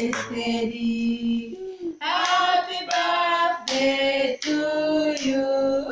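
A group of women and children singing a birthday song together with held notes, to hand clapping.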